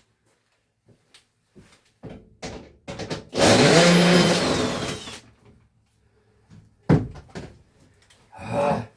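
Power drill running for about two seconds, its pitch falling as it spins down at the end, with scattered knocks and clicks of handling before and after.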